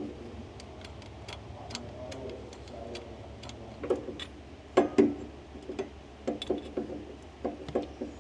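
Irregular light clicks and taps of hand tools and parts being handled on the brake linkage, a few of them louder about halfway through.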